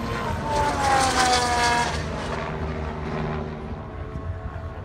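Formula 1 car passing at speed: its engine note is loudest about a second in and falls in pitch as it goes by, then carries on more quietly as the car moves away down the track.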